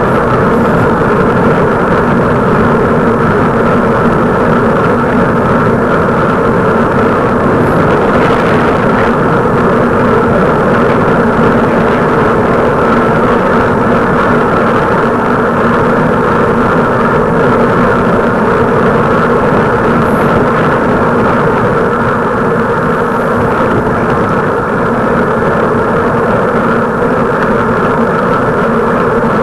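Steady vehicle running noise: a constant loud drone and rumble that holds level throughout, with no clear changes in speed.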